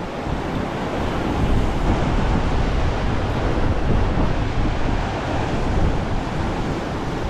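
Ocean surf washing in a steady rush, with wind buffeting the microphone.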